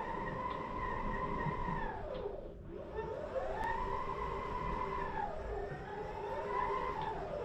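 Electric motors of a mobile manipulator robot's omni-directional base whining as it drives about. The pitch rises as it speeds up, holds, then falls as it slows, three times over, above a steady lower hum.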